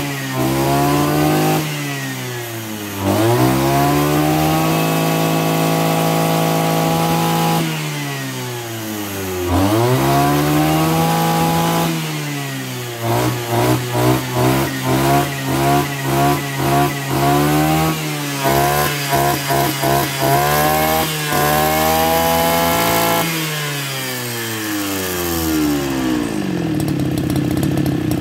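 Kioritz RM311 brush cutter's 31 cc two-stroke engine revved hard several times. It climbs to high speed, holds there a few seconds and drops back. In the middle it is blipped in a quick run of short bursts, then it falls back to a steady idle near the end.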